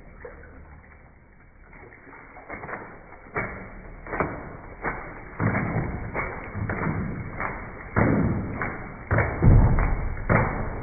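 A wet pug wriggling in a bathtub, its body and paws knocking against the tub: irregular dull thumps and taps starting a couple of seconds in, coming closer together and louder toward the end.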